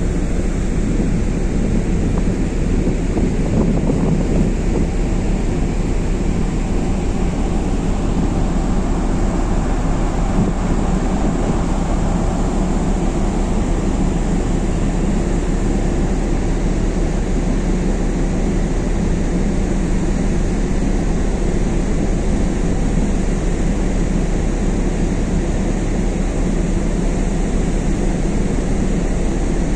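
Steady low drone of a car ferry under way, with wind buffeting the microphone.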